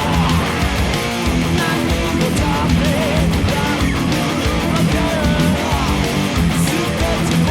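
Heavy metal music with electric guitar playing continuously and loud, a guitar cover played along to a metal track.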